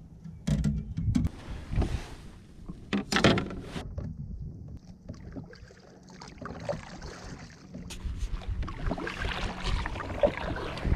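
Knocks and handling noise on a plastic kayak, the loudest about three seconds in, then a steady swish of water along the hull as the kayak is paddled.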